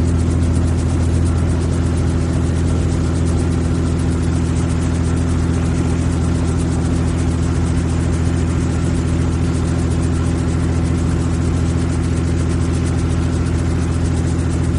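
Helicopter heard from inside the cabin in flight: a steady, loud low drone of engine and rotor with a fine rapid pulsing, unchanging in pitch and level.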